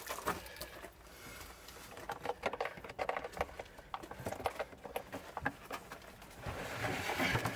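Many light clicks and knocks of hands and a tool working a 6-volt lead-acid battery and its cables in a battery compartment, thickest from about two seconds in.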